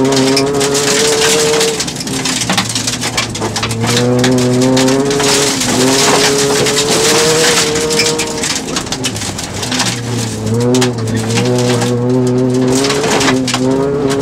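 Rally car engine heard from inside the cabin, held at high revs with the pitch dropping briefly about four times as the driver shifts or lifts, while gravel rattles and clicks against the underside of the car.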